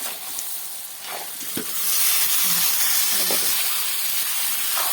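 Potatoes frying in hot oil in a pan, a steady sizzle that grows louder about two seconds in.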